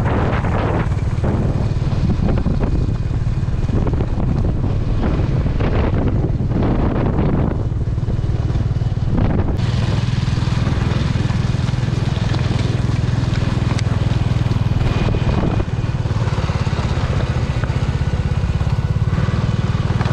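Motorcycle engine running steadily as it rides along, carrying several riders, with wind rushing over the microphone in gusts. The sound shifts abruptly about halfway through.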